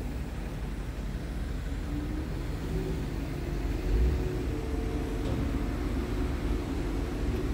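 Low, steady outdoor rumble of wind on the microphone and distant traffic, with a faint engine drone coming in from about two seconds in and a brief bump about four seconds in.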